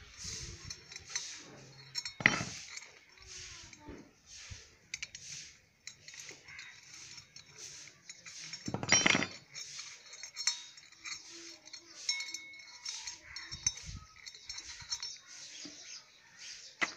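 Steel spanner and bolts clinking against a Honda CD70 motorcycle's rear sprocket as its mounting bolts are loosened, in many short repeated strokes. There is a sharp metal knock about two seconds in and a louder clatter around the middle.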